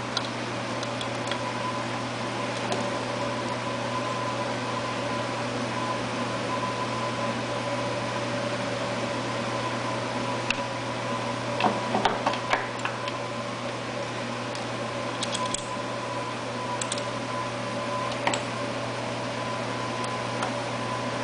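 Steady background machine hum, with a few light clicks and knocks of small parts being handled as a new brush holder is fitted to a generator, a cluster of them about twelve seconds in.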